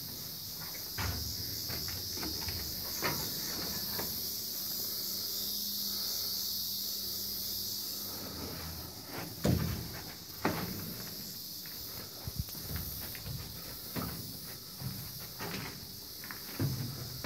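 Steady high-pitched insect buzzing, with footsteps and scattered knocks on the boat's steel hull, the loudest about halfway through.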